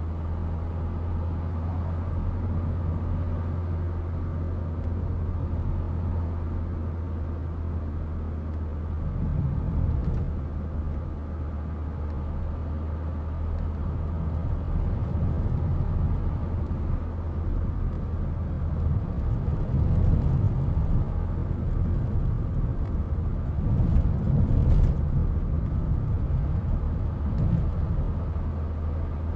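Driving noise heard from inside a car's cabin: a steady low engine and tyre rumble, swelling louder a few times.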